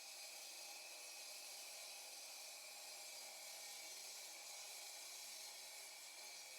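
Near silence: a faint, steady hiss with no distinct sound events.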